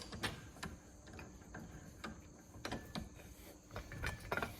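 Scattered light clicks and taps of metal parts being handled and fitted together, irregular and spaced out, the sharpest one right at the start.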